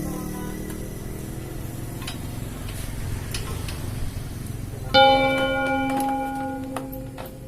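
Scooter engine noise dies away about a second in, then small tool clicks. About five seconds in, a loud metallic clang rings on for about two seconds.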